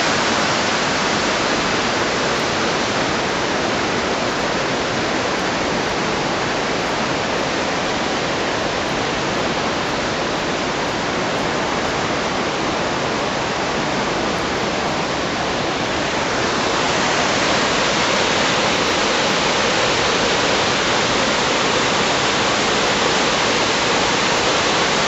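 Savica waterfall's steady rush of falling water, a dense hiss that grows a little louder and brighter about 16 seconds in.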